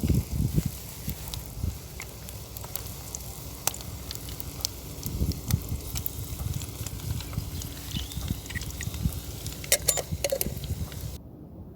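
Irregular crackling and sharp clicks over a low rumble. It changes abruptly shortly before the end.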